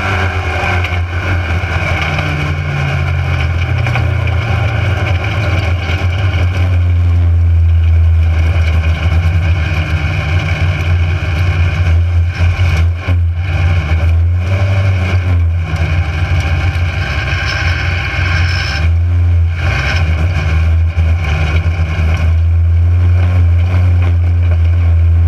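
Mini stock race car's four-cylinder engine running hard under racing load, heard from inside the car. The engine note shifts in pitch and dips briefly a few times in the second half before coming back up.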